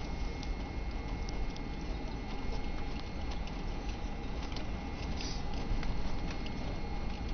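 Airliner cabin noise while taxiing: a steady low rumble with a faint high whine, and many light clicks and rattles scattered throughout.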